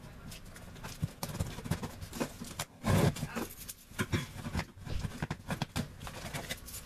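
Cardboard shipping box being opened by hand: packing tape slit with a key and torn, and the flaps pulled and handled, giving irregular scrapes, rips and knocks, loudest about three seconds in.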